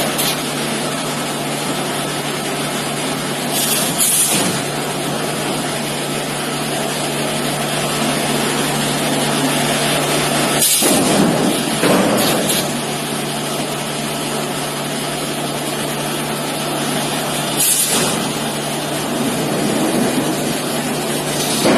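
CNC machine running a cut: a steady machining noise over a low constant hum, swelling louder about every seven seconds as the tool works.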